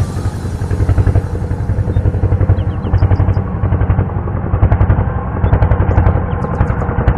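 A small engine running with a rapid, even pulsing beat that holds steady throughout.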